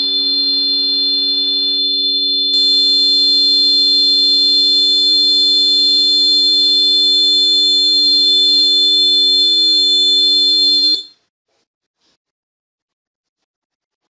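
Piezo buzzer of a homemade fire-alarm circuit sounding a continuous, steady high-pitched tone, then cutting off suddenly about eleven seconds in. The alarm sounds because the heated tube-light glow starter's bimetal strip has bent into contact with its pin, closing the circuit.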